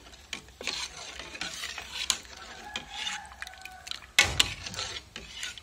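Metal ladle stirring milk and diced aloe vera in a metal pot, clinking and scraping against the sides, with a louder knock about four seconds in.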